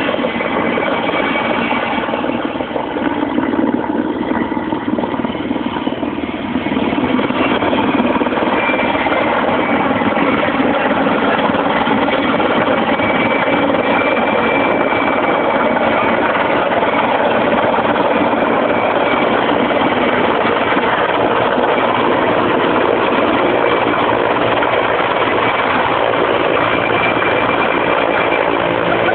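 Erickson S-64 Air-Crane heavy-lift helicopter flying low and close: steady twin-turbine whine and main-rotor noise, growing louder about seven seconds in as it comes down near the field.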